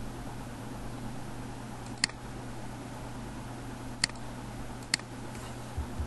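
Three sharp clicks of a computer mouse, the last two about a second apart, over a steady low background hum.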